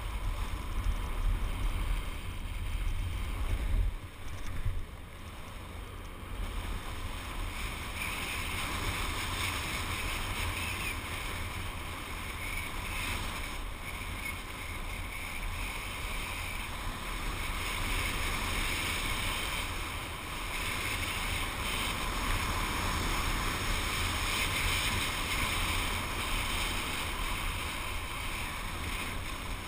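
Wind rushing over a GoPro microphone and the steady hiss of gliding over packed snow on a downhill run, with heavy low wind buffeting in the first few seconds before it settles into a steadier hiss.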